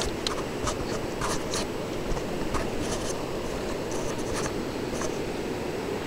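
Camera handling noise: irregular scratches and light ticks over a steady low hiss.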